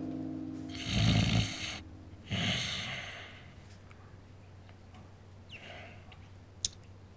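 A man snoring loudly in his sleep, two heavy rasping snores about a second and a half apart, then a fainter breath near the end. A short sharp click comes just before the end.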